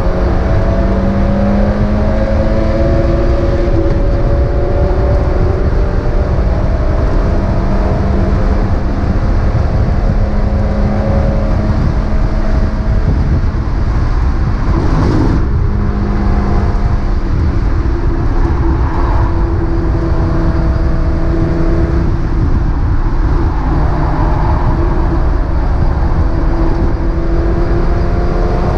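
Mazda MX-5 race car engine running hard, its pitch climbing slowly under acceleration and dropping back several times as the car shifts or slows. There is a brief burst of noise about fifteen seconds in.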